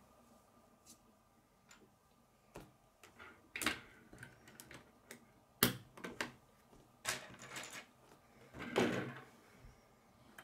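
Plastic K'nex rods and connectors clicking and clacking as they are handled, snapped together and set down on a wooden table: irregular small clicks, one sharp snap a little past halfway, and a longer clatter near the end.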